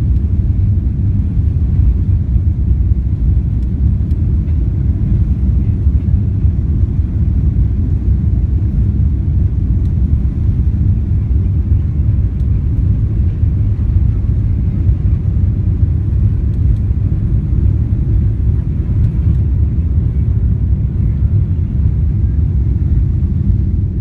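Boeing 777-300 cabin noise during the takeoff roll and lift-off: the jet engines at takeoff thrust give a loud, steady low rumble, heard from inside the cabin.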